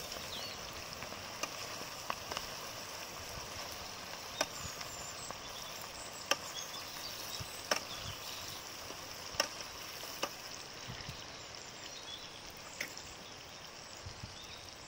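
Sliced onions sizzling in hot oil in a steel kadai: a steady hiss with sharp clicks every second or two.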